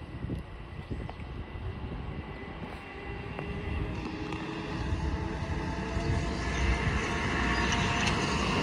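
Metro-North M7 electric multiple-unit train approaching and passing, wheels rumbling on the rails with a steady high whine on top, growing steadily louder as it nears.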